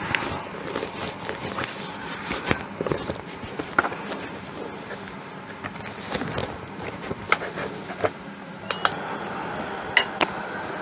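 Clicks, knocks and rustles of handling as a powered air-fed respirator helmet (air shield) is put on beside a stopped wood lathe. A steady whir starts about eight seconds in.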